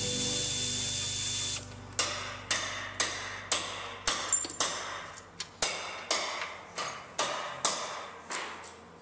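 A steady noise cuts off about one and a half seconds in. After that, hand tools working the intake manifold bolts make a regular run of sharp metallic clicks, about two a second, each ringing briefly.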